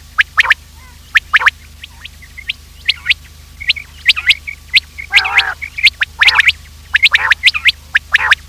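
Quail calling in a quick, irregular series of short, sharp notes, with a few longer, rougher calls mixed in. A steady low hum runs underneath.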